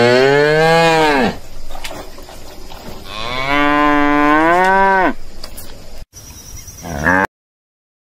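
Domestic cow mooing: two long moos whose pitch drops away at the end, then a short third moo that cuts off suddenly.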